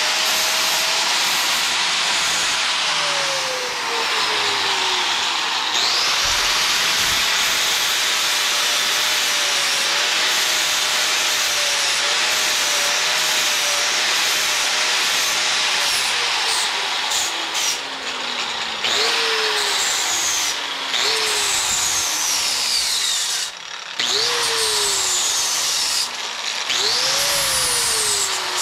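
Angle grinder grinding down welds on an old steel bicycle frame: a steady motor whine over the hiss of the disc, the pitch sagging whenever the disc is pressed in. In the second half it works in short passes, the pitch dropping and climbing back several times.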